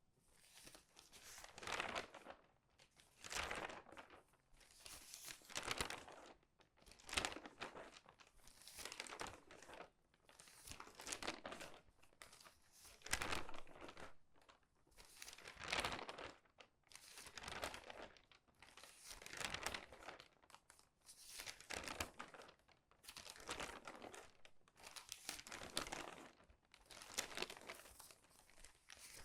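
Crinkly newspaper pages being turned quickly by hand, each turn a separate crackling rustle, one coming about every second and a half.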